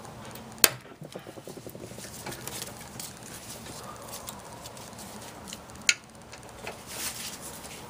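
Socket wrench working bolts on a Honda GX160 engine: a quick run of ratchet clicks about a second in, and two sharp metallic snaps about five seconds apart, with smaller knocks of tool on metal between.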